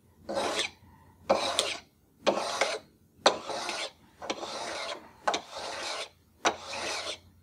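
A hand grater scraped repeatedly across hardened hard-fill stick on a cabinet door's broken edge, shaving the fill down level with the surface. About seven scraping strokes, roughly one a second, several starting with a sharp tick.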